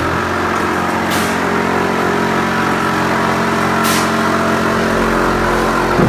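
TUPO 8 automatic plastering machine's motor starting up and running steadily as the carriage climbs its mast, troweling mortar onto the wall. Two brief hisses come through about a second in and again near four seconds.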